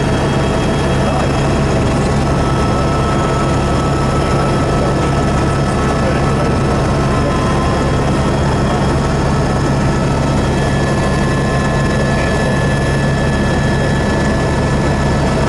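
Helicopter engine and rotor running steadily in level flight, heard inside the cabin as a constant low hum over a rushing noise.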